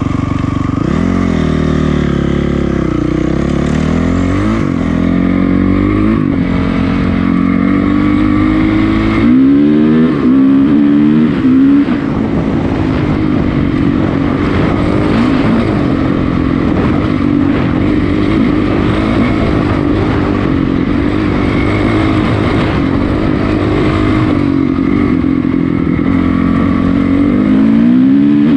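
2006 Honda CRF450R's single-cylinder four-stroke engine being ridden hard, its pitch climbing and dropping again and again as the throttle is opened and closed through the gears. It is loudest about ten seconds in.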